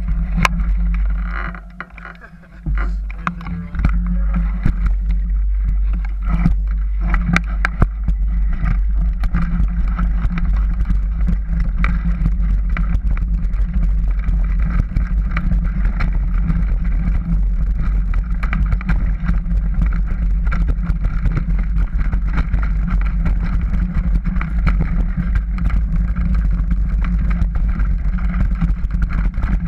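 Wind buffeting the microphone over the rattle and clatter of a mountain bike rolling fast down a dirt forest trail. It eases briefly about two seconds in, then picks back up.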